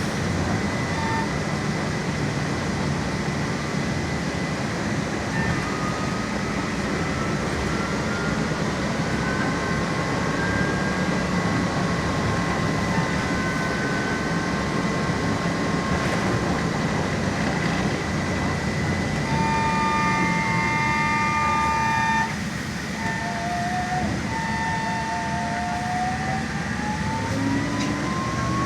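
LAZ E183D1 trolleybus running, heard from inside the cabin: steady rolling and running noise with the thin whine of its electric traction drive. After a brief drop in level about two-thirds of the way through, the whine climbs steadily in pitch as the trolleybus picks up speed.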